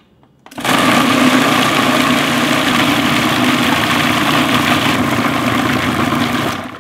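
Food processor motor switching on about half a second in and running steadily at full speed, blending a thick red chili-paste sauce, then stopping near the end.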